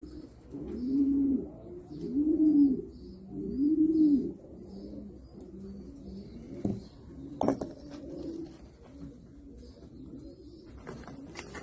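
Jacobin pigeon cooing: three loud coos that rise and fall in pitch in the first four seconds, then softer cooing continues. A sharp knock about seven and a half seconds in.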